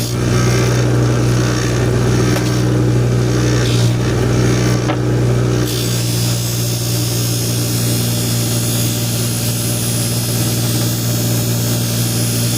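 High-speed buffer running with a steady motor hum while the edge of a serrated bread knife is held against the spinning wheel, giving a hissing rub. The rub comes and goes in the first half and holds steady from about six seconds in.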